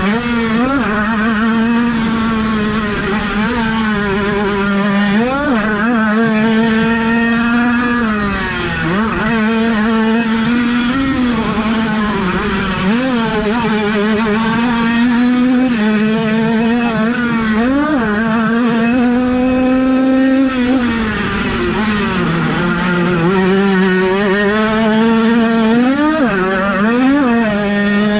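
Small 50cc two-stroke motocross bikes racing. The loudest engine revs up and down again and again as it is worked through the gears and corners.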